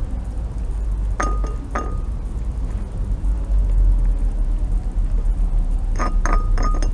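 Fox cub feeding from a ceramic saucer, its teeth and muzzle knocking the dish. It gives a few sharp clinks that ring briefly: two about a second in, then a quick run of three or four near the end. A steady low rumble runs underneath.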